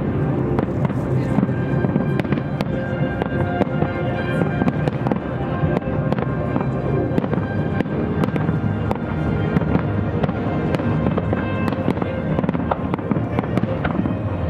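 Fireworks shells bursting in a rapid, irregular string of sharp bangs and pops, with music playing underneath throughout.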